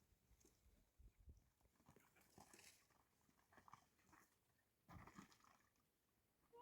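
Near silence, with faint scattered ticks and soft rustles.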